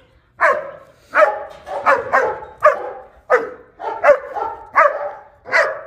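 German Shepherd barking repeatedly at a steady pace, about eight loud barks a little under a second apart.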